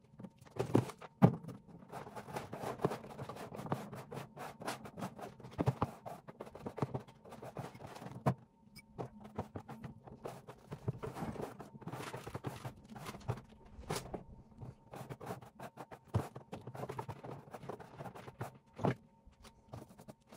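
Hand brush and dustpan sweeping spilled litter, droppings and food crumbs out of a plastic rat-cage tray: irregular scraping and rustling broken by small clattering knocks.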